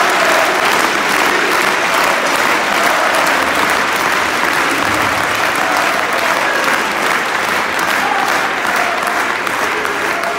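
Large arena crowd applauding steadily, a dense, even sound of many hands clapping.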